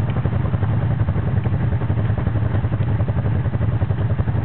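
ATV (quad) engine running steadily close by, with no revving up or down.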